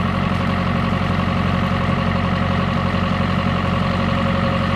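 John Deere tractor engine running steadily, driving the homemade sprayer's pump, with water spraying from a hose nozzle under pressure.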